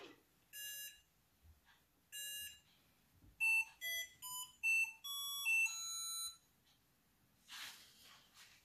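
Toy ATM touch-screen money box beeping twice as keys on its touch screen are pressed, then playing a short electronic melody of quick notes at changing pitches.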